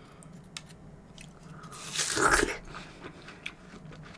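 Close-miked biting and chewing of watermelon: small wet mouth clicks, with one loud, crisp, juicy bite about two seconds in that lasts about half a second.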